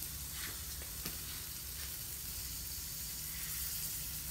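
A steady, even hiss over a low hum, of the kind heard as a faint sizzle, with a couple of light clicks about half a second and a second in.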